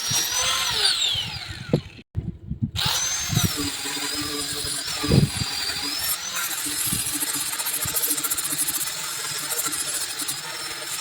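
Electric power tool working wood, its motor running with a steady high whine. About a second in the whine falls in pitch as the motor winds down, then after a short gap it runs steadily again, with a knock partway through.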